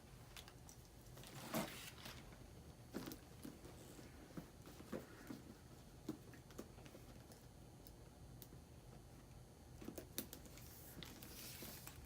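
Faint handling noise from a handbag: scattered sharp clicks and light rustling as its strap hardware is fitted onto the bag, with a soft rustle near the end.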